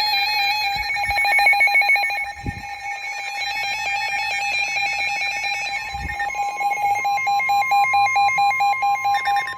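Several NOAA weather radios sounding their alert alarms together for a severe thunderstorm warning: overlapping rapid electronic beeping and stepped, warbling tones, with a steady tone joining about six seconds in.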